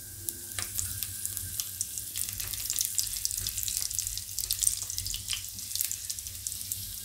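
Cumin seeds and whole dried red chillies sizzling in hot oil in a kadai, a steady fine crackle, while a silicone spatula stirs them through the oil.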